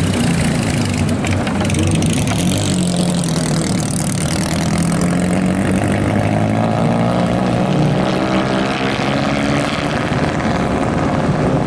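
Vintage race car engine running at low revs as the car rolls slowly along, its note rising and falling slightly with small throttle changes.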